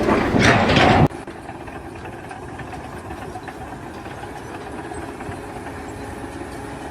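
A loud noisy burst that cuts off suddenly about a second in, then a steady engine running at idle.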